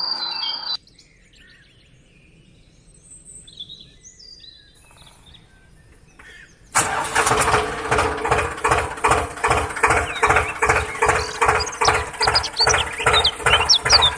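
A tractor engine starts suddenly a few seconds in and runs with a steady, rhythmic thumping, about three beats a second. Faint bird chirps come before it and over it near the end.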